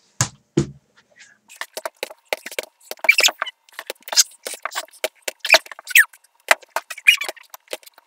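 Plastic bottles being flipped and landing on a storage box: two dull thumps at the start, then a long irregular run of quick plastic knocks and clatters as the bottles hit, tip and are picked up again.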